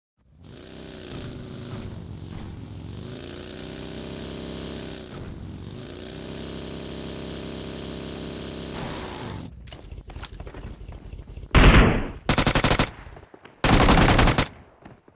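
Barn owl screeching: three loud, harsh, rasping shrieks in the second half, each under a second long. Before them comes a quieter, steadier sound made of several pitched tones, which dip in pitch twice.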